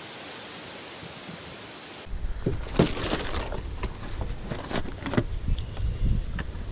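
A steady hiss, then after a sudden cut about two seconds in, a small campfire of sticks crackling and popping with irregular sharp snaps over a low rumble.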